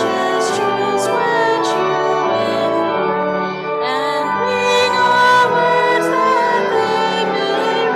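A hymn sung with instrumental accompaniment: held chords that change every second or so, with a singing voice over them.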